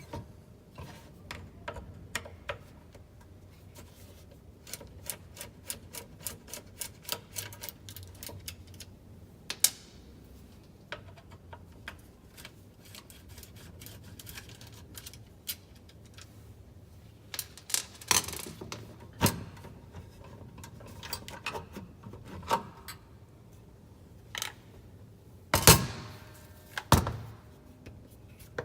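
Irregular clicks, taps and knocks of small hard parts being handled and set down during the repair of a Makita 5704R circular saw. Quick runs of light clicks are followed by a few louder knocks after about eighteen seconds and again near the end.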